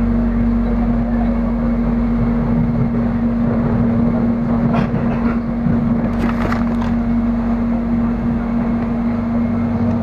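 Steady hum and rolling rumble inside the cabin of a moving electric airport train, with a few brief clicks about halfway through.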